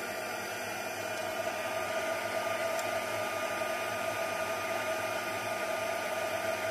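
Embossing heat tool running steadily, a fan's rushing air with a constant mid-pitched hum, blowing hot air to melt the embossing powder on a stamped paper sentiment.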